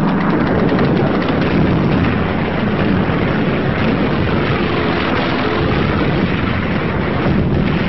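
Continuous loud roar of aircraft engines mixed with battle noise, added as a sound-effects track under wartime combat footage.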